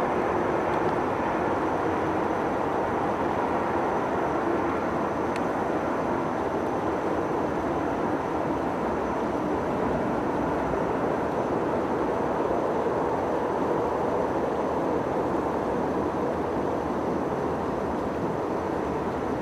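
Long electric-hauled freight train running on the Gotthard line, heard from afar: a steady, even rumble of wheels on rails.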